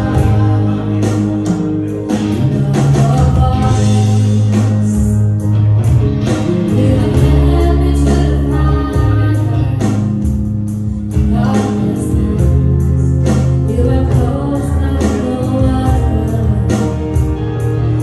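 A woman singing a slow gospel worship song with a live band: keyboard, acoustic and electric guitars and an electronic drum kit, over deep sustained bass notes and a steady drum beat.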